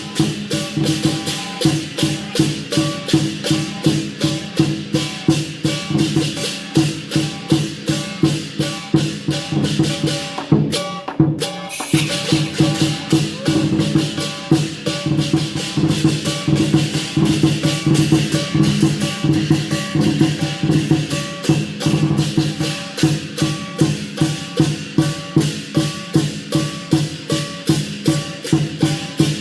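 Music with a steady, fast percussive beat of about three strikes a second over held tones and a simple melody. It briefly drops out a little over a third of the way in.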